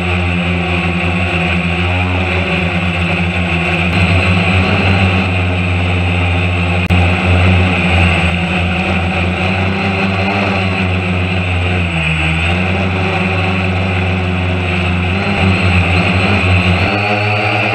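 Quadcopter drone's motors and propellers buzzing steadily, heard from the camera it carries. The pitch wavers as it manoeuvres and dips briefly, then recovers, about two-thirds of the way through.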